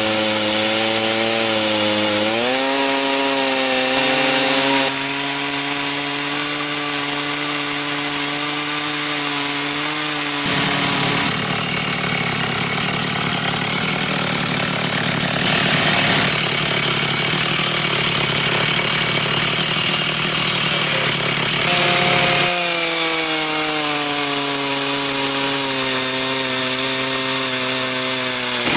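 Stihl 360 chainsaw on a mini chainsaw mill running at full throttle, ripping a red oak log into boards. The engine note rises about two seconds in and holds steady, turns rough and noisy for about twelve seconds in the middle, then clears again and slowly sinks near the end.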